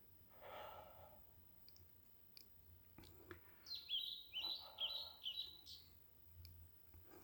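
A small songbird calls a quick run of short, sharp chirps about halfway through, lasting around two seconds. Under it, a few footsteps scuff along a forest trail.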